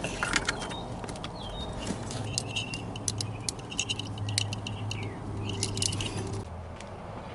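Plastic wiring-harness connectors under a van seat being worked apart and unplugged: a run of small irregular clicks and rattles with short high squeaks, over a low steady hum.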